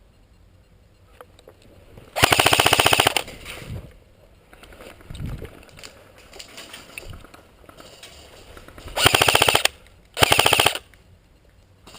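Airsoft gun firing on full auto in three bursts: a long one of about a second, then two short ones in quick succession near the end.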